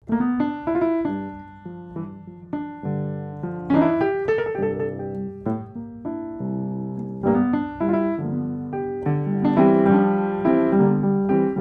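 Background piano music: a run of struck notes over held chords.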